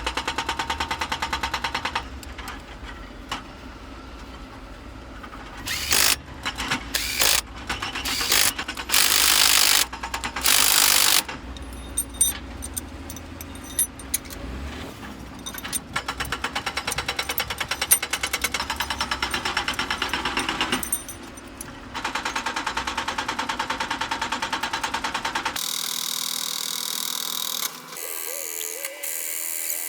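Power tools working on an engine in bursts, each burst a rapid, even rattling, with scrapes and clanks of metal parts in between.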